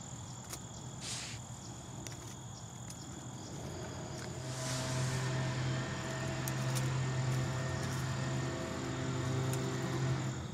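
Crickets trilling steadily, with scattered soft crackles from a small twig fire catching in a folding steel wood stove. A low steady drone like a distant engine comes in about four and a half seconds in and becomes the loudest sound.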